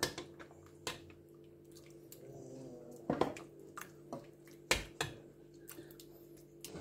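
A utensil stirring creamy chicken green curry in a cooking pot: soft squelching with scattered clicks and knocks against the pot, the loudest about three and five seconds in, over a faint steady hum.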